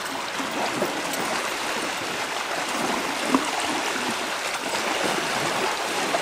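Shallow lake water splashing and sloshing continuously as horses wade through it, with one sharper splash about three and a half seconds in.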